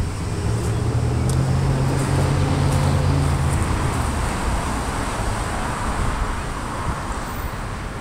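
Road traffic: a motor vehicle going by, its low engine hum strongest in the first few seconds and tyre noise swelling through the middle and fading toward the end.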